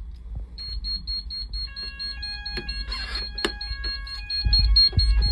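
Fire alarm sounders going off, set off by a manual call point operated with its test key. A rapid pulsing high beep starts about half a second in, and a second later several other sounders join on different tones, some steady and some on-off, out of time with each other. A brief rattle comes about three seconds in.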